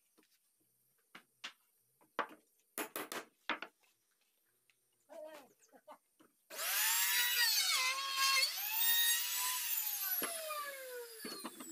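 A few light knocks of a hammer on wood, then an electric trim router starts about six and a half seconds in. Its whine dips in pitch as the bit cuts into a wooden strip, and it winds down with falling pitch near the end.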